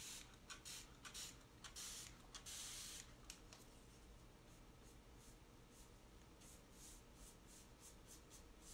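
Faint swishes of a paintbrush stroking chalk paint across a door, a quick string of short strokes in the first three seconds and sparser ones after, with one longer hiss about two and a half seconds in.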